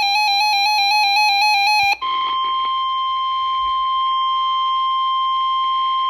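Weather-radio Emergency Alert System broadcast: a harsh, buzzing warble of digital header data cuts off about two seconds in. It is followed by the steady single-pitch warning alarm tone of NOAA Weather Radio, heard through a radio speaker.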